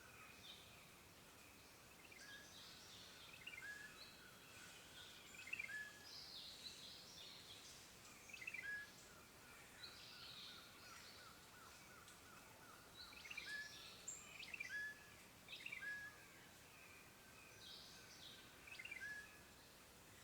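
Faint forest birdsong: a few birds calling short chirping phrases every second or two over a soft steady hiss.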